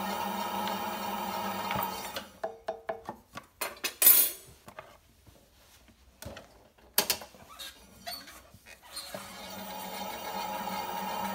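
An electric potter's wheel runs with a steady hum while a loop tool trims a leather-hard clay lid. The wheel stops about two seconds in, leaving a series of clicks, clinks and knocks from tools and clay being handled, the loudest about four seconds in. The wheel starts up again about nine seconds in.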